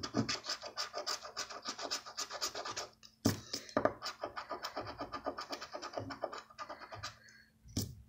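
Plastic poker chip scraping the coating off a large scratch-off lottery ticket in rapid back-and-forth strokes, about nine a second. A short break with a knock comes about three seconds in, and two sharp knocks come near the end.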